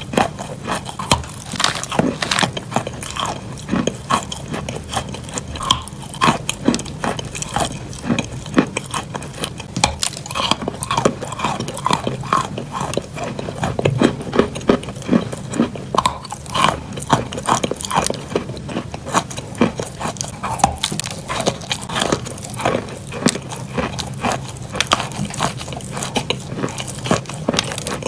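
Close-miked biting and chewing of green chalk: a dense, uneven run of small crisp crunches as the chalk breaks up between the teeth.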